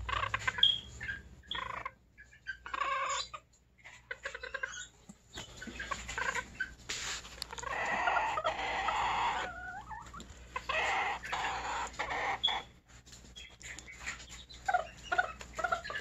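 Serama bantam chickens clucking on and off, in short calls, with a longer, louder run of calls about halfway through.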